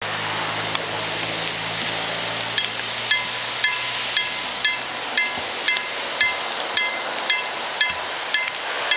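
KLD-40 electric level-crossing bell of a COB-63A ZWUS crossing system starting to ring about two and a half seconds in, single strokes about twice a second, each ringing on briefly: the crossing warning has been switched on for an approaching train. A steady hiss runs underneath, and a low hum dies away about halfway through.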